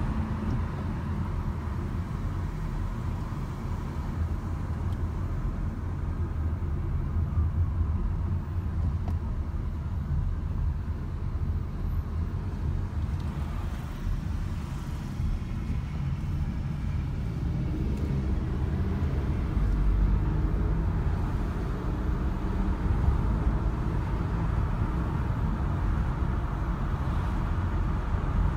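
Steady engine and tyre road noise heard from inside a moving car's cabin. It eases briefly about halfway through, as the car crosses a traffic-light intersection, then builds again with a rising engine note as the car speeds up.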